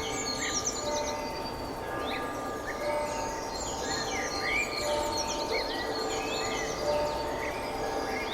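Village outdoor ambience: many birds chirping and singing over a steady background hiss, with faint held tones coming and going underneath.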